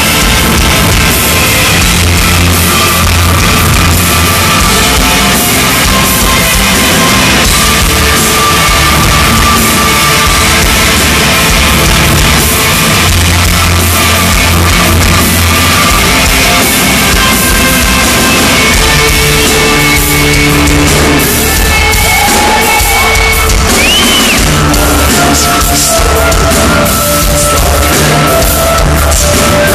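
Heavy metal band playing live, heard from the crowd: distorted guitars, drum kit and vocals, loud and steady throughout.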